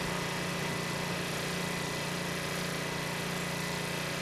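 A small engine running steadily with an even, unchanging hum.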